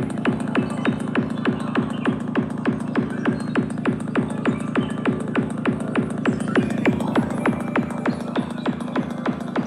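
Electronic techno-style music with a fast, steady kick drum, about four beats a second, over a held low bass, played on a portable Bluetooth speaker.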